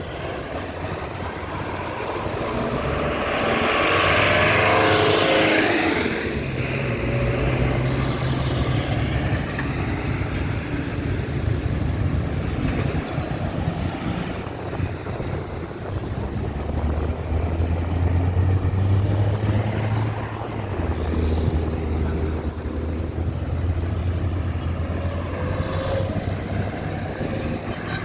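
Road traffic going by: car and truck engines and tyres, loudest as one vehicle passes close about four to six seconds in, with a low engine drone strong again a little past the middle.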